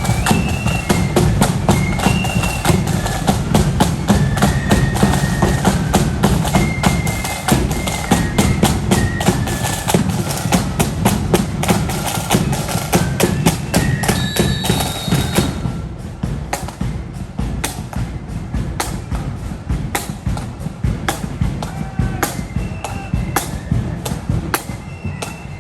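Marching flute band with side drums and bass drum playing a parade tune: shrill flute melody over dense, steady drumming. About fifteen seconds in, the sound drops and the flutes grow faint while the drums keep going.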